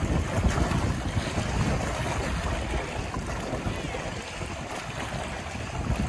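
Choppy, wind-driven lake waves splashing against shoreline rocks, with wind gusting over the microphone. The wind eases a little in the second half.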